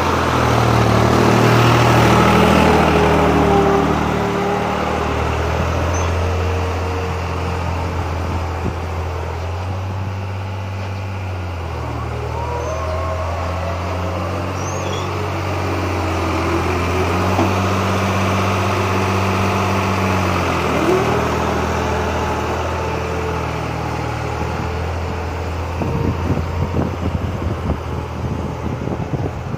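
New Holland 3600-2 tractor's diesel engine running steadily as it pulls a disc harrow through tilled soil. It is loudest in the first few seconds as the tractor passes close, then lower as it moves off, with uneven rumbling near the end.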